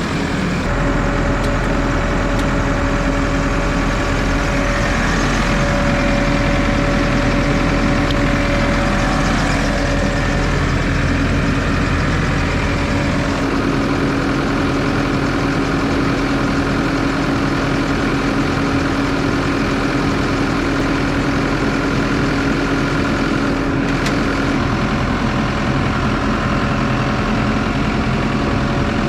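Case 120 tractor's diesel engine idling steadily, just after being started following a dead battery, its note shifting slightly a couple of times.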